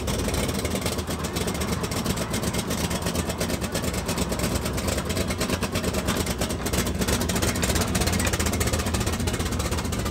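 A customized Chevrolet Impala station wagon's engine running as the car pulls in to the curb, then idling with a steady low rumble.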